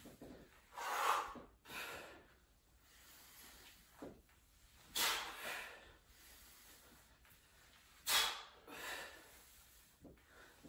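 Forceful exhales, three strong ones about a second, five and eight seconds in, with softer breaths between. This is breath pushed out to brace the abs while standing up out of each goblet squat.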